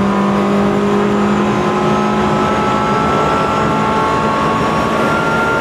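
Ford Fiesta ST150's 2.0-litre four-cylinder engine pulling hard in one gear, its note rising slowly as the revs climb, heard from inside the stripped race-car cabin over road and tyre noise.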